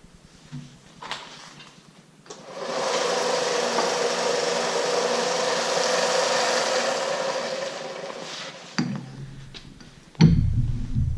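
A small power tool's motor runs steadily for about six seconds and then winds down, with a few light knocks before it. A loud thump and handling noise come near the end.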